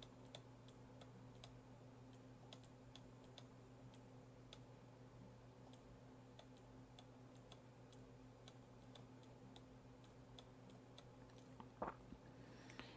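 Near silence: faint, irregular ticks of a stylus tip tapping a screen while handwriting, over a low steady hum.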